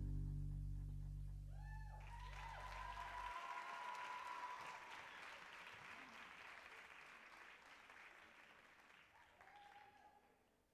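Audience applauding with a few cheers as the song's last low chord rings on and cuts off; the clapping then thins out and fades away.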